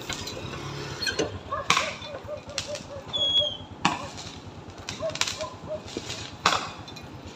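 Fireworks going off: about five sharp bangs at irregular intervals, a second or more apart, with a short high whistle about three seconds in.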